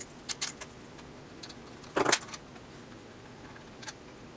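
Small metal transmission parts and hand tools clicking and clattering as they are handled: a few light clicks, one louder short clatter about two seconds in, and a faint tick near the end.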